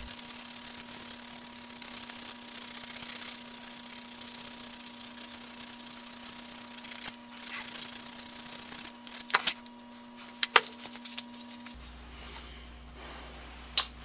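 Painted wooden drill handle rubbed against a hand-held abrasive block to take the paint off: a steady, scratchy hiss for about the first seven seconds. After that come a few sharp knocks and clicks.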